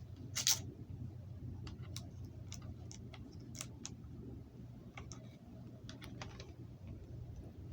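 Plastic DVD case and its wrapping being handled: scattered sharp clicks and crackles, the loudest about half a second in, over a low steady hum.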